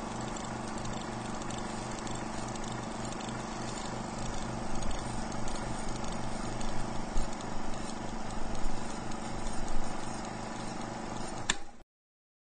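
Title-sequence soundtrack: sustained tones over a steady low rhythmic pulse, growing a little louder in its second half and cutting off abruptly near the end.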